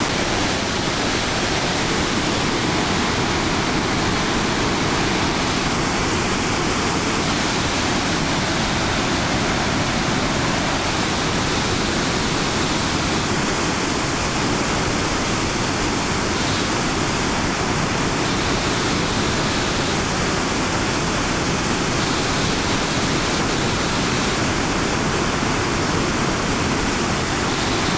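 Athabasca Falls, a large waterfall on the Athabasca River, with turbulent white water gushing over the drop-off in a loud, steady rush.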